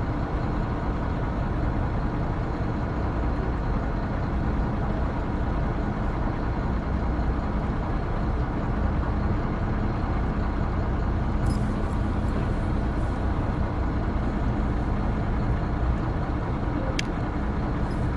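The fishing boat's engine running steadily beside the engine room: a constant low rumble with an even hum. A few faint sharp ticks come in the second half.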